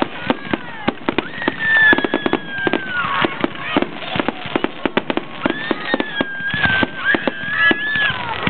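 Fireworks finale: aerial shells bursting in a rapid, irregular barrage of bangs, several a second. Twice a long, wavering high whistle runs over the bangs, for about two seconds each time, starting about a second in and again past the middle.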